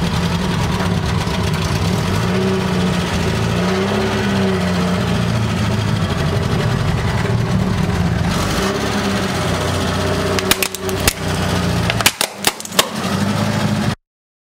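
Car engine running slowly as the tyre rolls over objects, with a low wavering hum throughout. Near the end come a handful of sharp cracks and snaps as things break under the tyre, and the sound cuts off suddenly.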